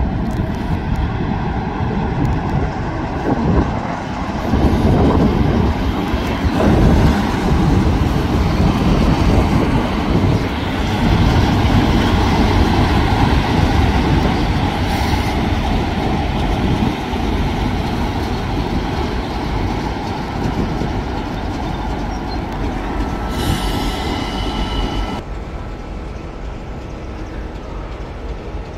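A train running past on the rails, loudest for several seconds near the start, then easing and dropping away abruptly near the end, with a brief high squeal just before the drop.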